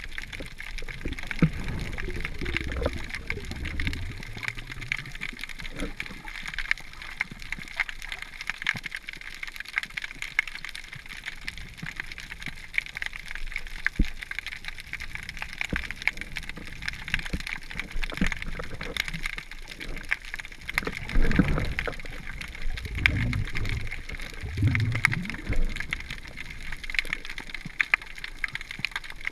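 Underwater sound picked up through a camera's waterproof housing: a constant fine crackle of tiny clicks, with muffled low gurgles and water rushes from the snorkeler's movement and bubbles, loudest about two-thirds of the way through.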